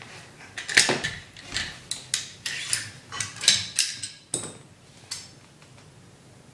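Metal clicks and clacks of an AR-15 rifle being taken apart by hand for a field strip: about a dozen sharp knocks in quick, uneven succession, stopping about five seconds in.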